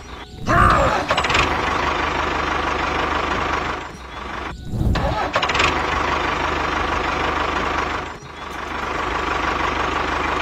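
Engine sound effect running steadily, dubbed over the toy. It breaks off briefly near the start, about four seconds in and about eight seconds in, and after the first two breaks a short rev rises and falls in pitch.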